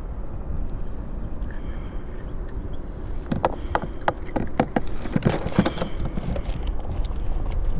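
Steady low rumble of wind and water at a kayak. About three seconds in comes a run of small sharp clicks and rustles, lasting a few seconds, as hands work a fishing hook and line.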